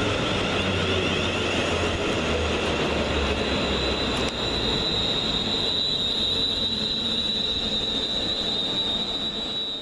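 Class 350 Desiro electric multiple unit drawing into the platform, its wheels rumbling. A steady high-pitched brake squeal sets in about four seconds in and holds as the train slows.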